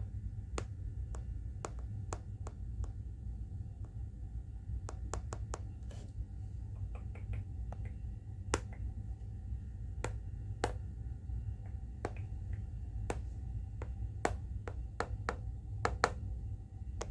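Sharp clicks and ticks made by hand at irregular intervals, some in quick clusters, over a low steady hum.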